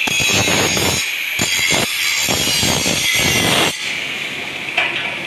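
Angle grinder working on a steel bar: a high, steady screech over a rough grinding noise that stops about three and a half seconds in. A sharp metallic click follows near the end.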